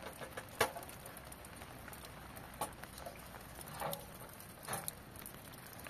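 Steady patter of rain, with a few scattered sharp clicks and taps over it, the loudest a little over half a second in.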